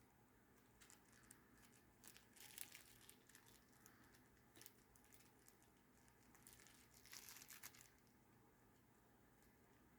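Faint, scattered rustling and crinkling with small clicks, the sound of packaging and small camera accessories being handled. It comes in two busier spells, about two seconds in and again about seven seconds in.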